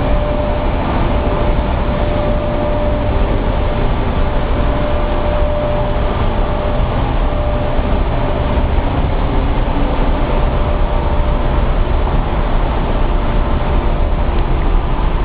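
Loud steady din of running pulp-processing machinery, motors and pumps driving the mill's pulping equipment, with a faint steady whine that fades out about halfway through.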